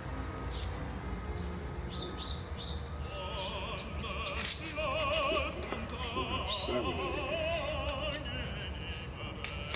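Operatic singing with a wide, wavering vibrato, playing as music over a steady low hum, with a few sharp clicks.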